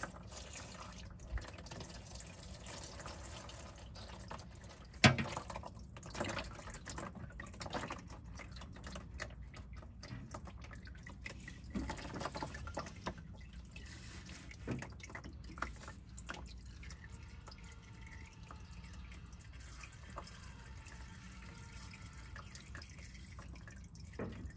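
Old automatic transmission fluid draining from the tilted pan of a 2003 Ford F-150's 4R70W transmission into a drain pan: a steady trickle with irregular drips. There is one sharper knock about five seconds in.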